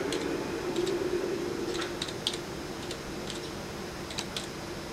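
Computer keyboard keys clicking at an irregular pace, as when typing, over a steady hum from a running fan and air conditioner.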